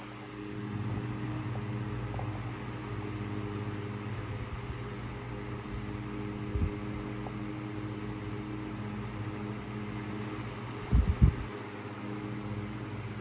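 Antique Emerson Electric 12-inch 77646-AK table fan running steadily: a constant motor hum under the rush of air from the blades. A few brief low thumps break in, the loudest about 11 seconds in.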